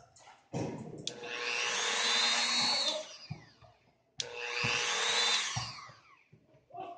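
Dremel 3000 rotary tool motor started twice: each time it whines up to speed, runs briefly, then winds down in pitch, the second start coming with a sharp click. It is being worked by its slide switch, which the owner reports as faulty.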